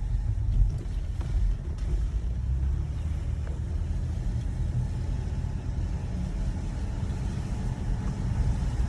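Car driving on a rain-wet road, heard from inside the cabin: a steady low rumble of engine and road noise, with a faint hiss of the tyres through water.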